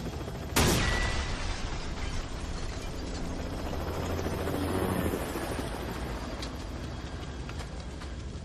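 Car wreck exploding, a movie explosion effect: one sharp blast about half a second in, then a steady low rumble as the wreckage burns.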